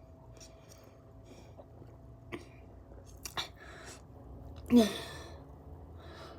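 A person's short, breathy vocal burst with a quickly falling pitch about three-quarters of the way through, following a few faint clicks.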